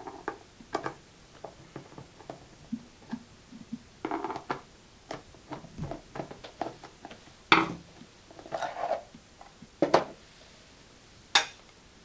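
Screwdriver backing out the two cover screws of a Condor MDR3 compressor pressure switch, with small clicks and scrapes, then the hard plastic cover being handled, lifted off and put down on a wooden table, giving three louder sharp knocks in the second half.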